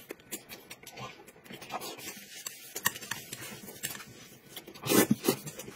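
Eating sounds: light clicks and scrapes of chopsticks against a plate of noodles, with soft chewing and a brief louder noise about five seconds in.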